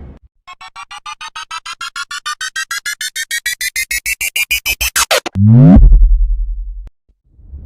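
Synthesized electronic sound effect: a run of beeps that speed up and rise in pitch for about five seconds, then a short zap and a low buzz that cuts off suddenly about a second later.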